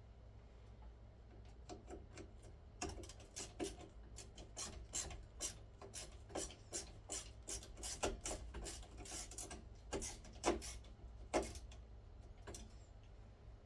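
Ceiling fan blades and their screws being handled and worked with a hand tool: a run of irregular clicks and scrapes, a few a second, starting about two seconds in and stopping near the end.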